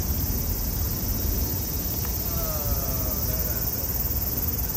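Cicadas droning in a steady high-pitched chorus with a fine rapid pulse, over a low rumble of street noise.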